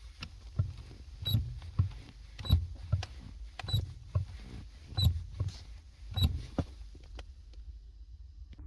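Renault Duster brake pedal being pressed and released over and over, about five times. Each release gives a knock with a short, high squeak from the pedal mechanism, about every second and a bit, with lighter clicks in between. The squeak comes from a dry plastic part of the pedal linkage.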